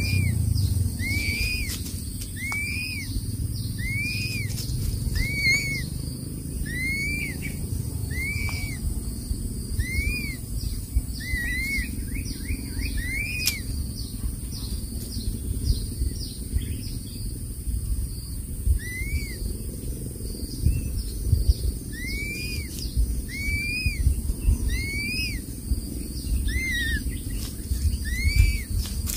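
Crested serpent eagle chick begging with short, high, arched peeping calls repeated about once a second, pausing for several seconds midway and then starting again while the adult feeds it. Beneath the calls is a low rumble.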